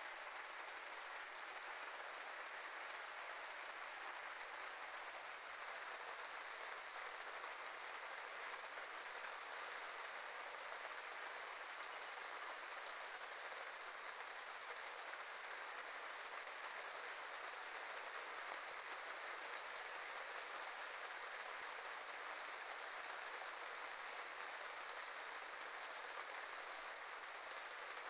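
Steady hiss of falling rain or water, with a few sharp ticks, one near the start and one about two-thirds of the way in. A constant high-pitched hiss sits above it.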